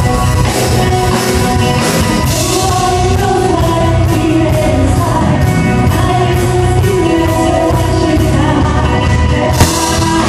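Live band playing a loud rock-pop song with sung vocals over electric guitars, bass, drums and keyboard. A sharp hit stands out near the end.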